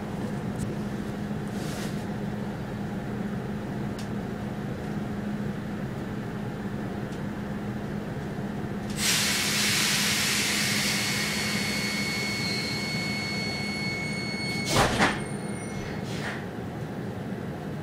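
Steady hum of a standing X10 commuter train. About nine seconds in, a loud hiss of compressed air with a thin whistle sets in, and it ends in two sharp bangs as the pneumatic sliding doors shut, with a lighter knock just after.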